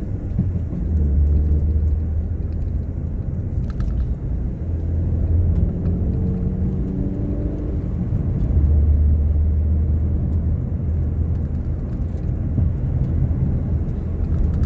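Mk7 Ford Fiesta on the move, heard from inside the cabin: a steady low engine and road rumble, with the engine note rising in pitch a couple of times as the car accelerates.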